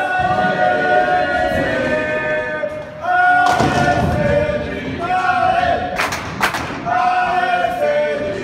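A group of voices chanting in long held notes, phrase after phrase, with a short break about three seconds in. Two sharp knocks come about six seconds in.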